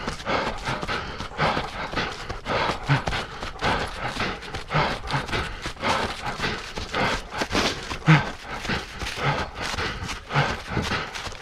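Running footsteps at race pace, about three strides a second, with short voiced breaths from the runner between them.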